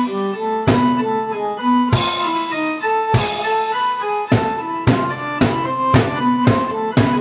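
A drum kit and a keyboard played together: a keyboard melody of held notes over drum and cymbal hits. The hits come about once every second and a bit at first, then about twice a second from a little past the middle.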